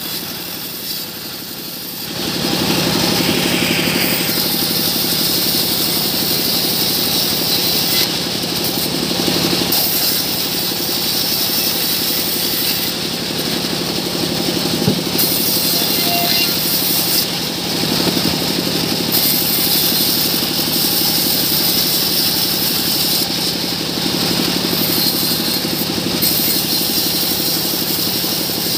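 Band sawmill running and sawing a small mahogany log into boards: a steady machine hum that gets louder about two seconds in, with the noise of the blade cutting wood coming and going as the log is fed through.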